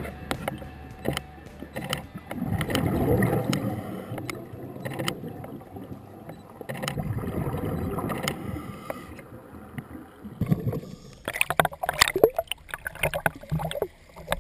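Muffled underwater noise through a waterproof camera housing, a low rumble that swells and fades twice, with scattered clicks. About eleven seconds in the camera breaks the surface and water splashes and slaps against the housing in quick, sharp bursts.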